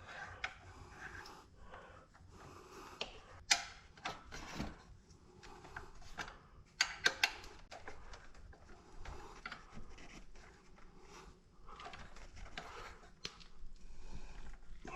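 Hand tools and metal exhaust parts being handled: scattered light clicks and knocks, the sharpest about three and a half and seven seconds in, with rubbing and shuffling between them.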